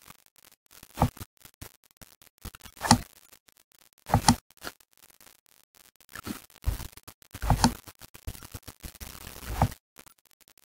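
Scattered small clicks of a computer mouse and keyboard, with six louder short rustles and thumps close to the microphone.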